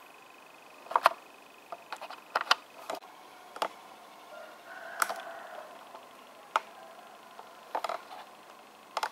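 Irregular sharp clicks and taps, about a dozen, some in quick pairs, over a low steady hiss.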